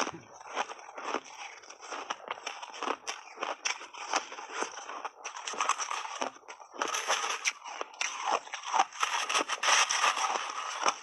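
Close-up crunching and chewing of mouthfuls of refrozen shaved ice, a rapid irregular crackle of ice breaking between the teeth that grows denser and louder in the second half.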